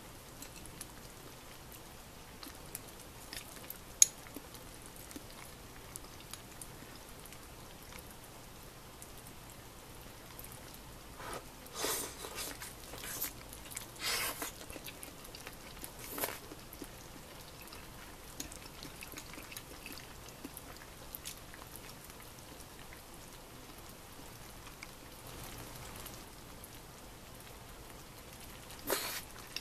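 Quiet eating sounds from a bowl of hot pot: a few light clicks of wooden chopsticks against a ceramic bowl, and short bursts of slurping and chewing about twelve seconds in, twice more soon after, and again near the end.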